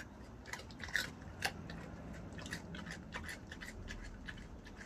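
Collared peccary (javelina) chewing carrot: irregular crisp crunching clicks, most in the first second and a half, then fainter.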